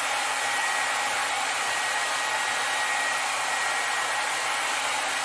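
Handheld hair dryer running steadily on its warm setting, blowing hot air into a large balloon: an even rushing hiss with a faint high whine.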